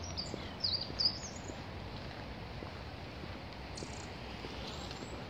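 Small birds calling with short, high chirps and whistles, several in the first second and a half and a couple more near the end, over steady outdoor background noise.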